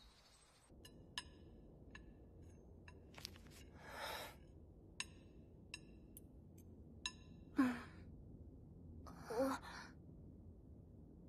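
Cutlery clinking lightly on plates, single clinks every second or so, with soft sighs from the diners: one about four seconds in and two louder, falling sighs near the end.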